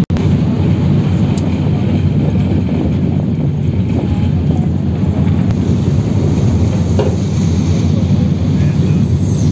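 Steady low rumble of a catamaran ferry's engines, heard on board.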